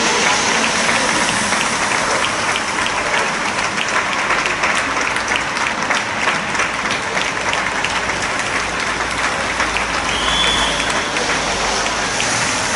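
Many people clapping from the balconies of apartment blocks along a street: a steady mass of hand claps with no let-up, and a brief high tone about ten seconds in.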